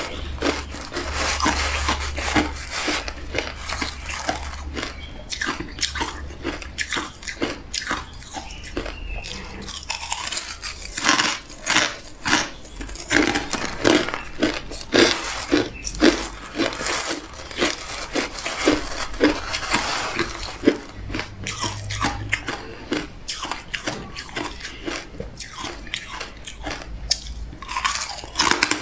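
Close-up crunching and chewing of hard crushed ice: many crisp, irregular crunches as the teeth break the pieces.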